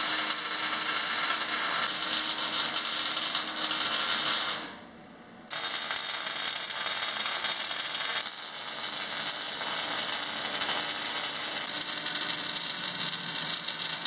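Electric arc welding on steel roll-cage tubes: a steady crackling sizzle of the arc. It breaks off for about a second near five seconds in, then resumes.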